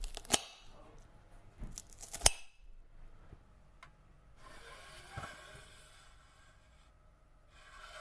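Sharp clicks and clinks, two near the start and a louder pair about two seconds in, followed by a soft hiss about four to six seconds in.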